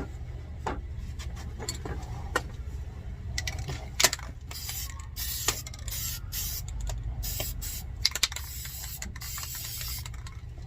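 Aerosol spray paint can hissing in several short bursts in the second half, with sharp clicks earlier on, over a steady low hum.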